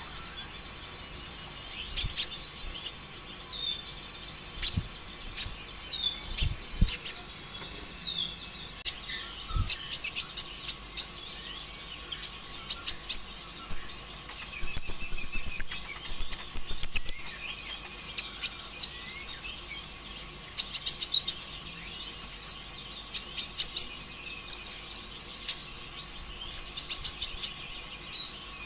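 A brown-throated sunbird (konin) singing vigorously: quick bursts of sharp, high chirps and fast trills, with a long rapid rattling run about halfway through. This is the frantic, nonstop 'konslet' (short-circuit) style of song prized by keepers.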